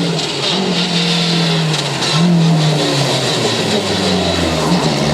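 Historic rally car engine revving hard under load, its pitch climbing and dropping several times through gear changes. A deeper engine note joins near the end.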